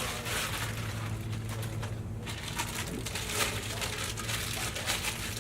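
Plastic packaging crinkling and rustling in short, repeated bouts as parts of the pull-up bar are handled and unwrapped, over a steady low hum.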